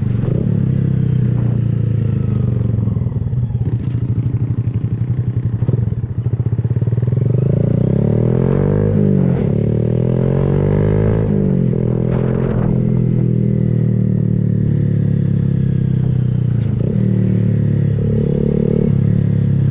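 Motorcycle engine running steadily, its pitch rising and falling a few times in the middle as the throttle is worked.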